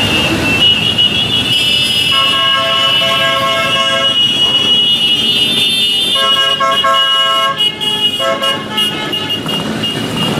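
Motorcycles riding past in a long column, engines running, with horns honking in several long blasts of one to two seconds each. A high steady tone holds throughout.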